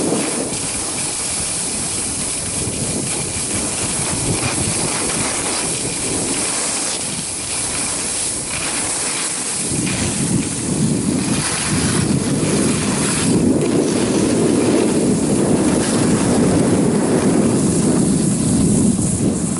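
Skis sliding over cold packed snow with a steady scraping hiss, mixed with wind rushing over the microphone; the sound grows louder and deeper about halfway through.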